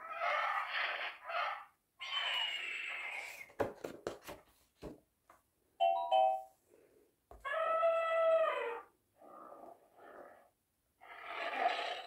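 An electronic sound book's small speaker plays short recorded prehistoric-animal calls one after another as its picture buttons are pressed: pterosaur screeches first, then prehistoric-mammal calls. Around four seconds in there is a cluster of clicks and paper noise as the page is turned. The longest and clearest call comes about eight seconds in.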